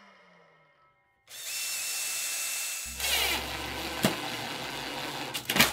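Cordless drill driving a wood screw into plywood. The motor starts about a second in and runs steadily, gets heavier about halfway through as the screw goes in, and ends with a few loud clicks.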